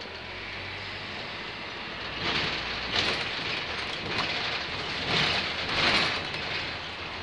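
Cabin noise inside a moving bus: a steady rush of road and engine noise with a low hum underneath, and louder rattling jolts swelling up several times from about two seconds in.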